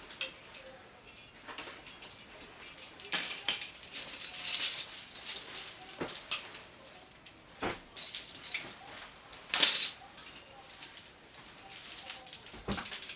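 Climbing hardware, cams and carabiners, clinking and jangling as it is handled and racked onto gear loops: a run of irregular metallic jingles and clicks, loudest about four and a half and nearly ten seconds in.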